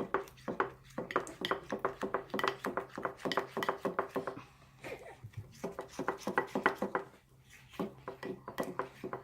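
A utensil stirring homemade glue slime in a cup, making rapid clicking and scraping strokes, several a second, that pause briefly twice. The mixture has not yet set into slime.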